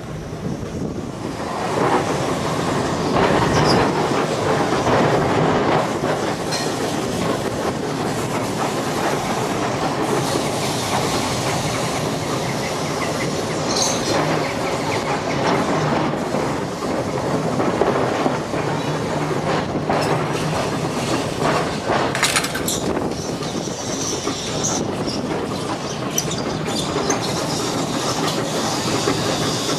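Electric tram running along street track, heard from aboard the open car: a steady rumble of wheels on rail with clicks over joints and pointwork, and a few brief high wheel squeals partway through.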